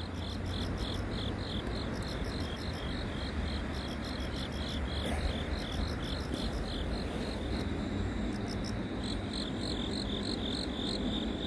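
Insects chirping in a steady pulsing rhythm, about three chirps a second, with a short pause about two-thirds of the way through, over a steady low background rumble.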